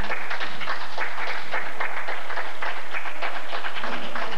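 Spectators clapping: a dense, uneven patter of many hands.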